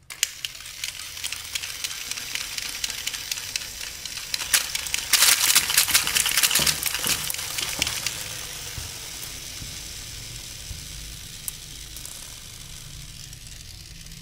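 Glass marbles fired in rapid succession from a Gatling Hades B-Daman toy launcher, clicking and clattering as they hit and roll across a hard tiled floor. The clatter starts suddenly, is densest for about three seconds in the middle, then thins to a fading rolling rattle.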